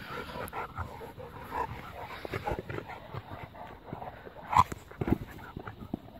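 Bullmastiffs playing: a busy run of short, irregular dog noises and scuffles, with one sharp loud sound about four and a half seconds in.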